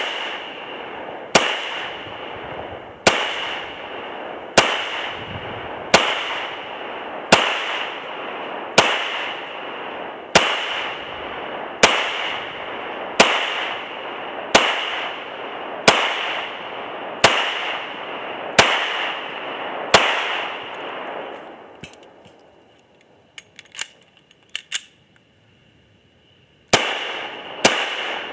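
Ruger P95 9mm semi-automatic pistol fired in slow, steady single shots about one and a half seconds apart, each shot trailing a long echo. After about fifteen shots the firing stops, a few faint clicks follow, and firing starts again near the end.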